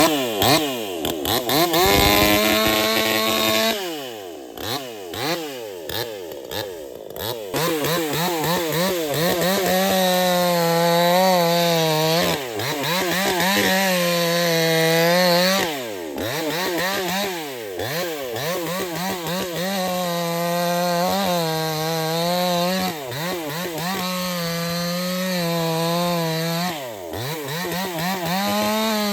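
Proyama chainsaw engine running hard and revving up and down again and again, its pitch dropping back sharply every few seconds before climbing to a high steady whine.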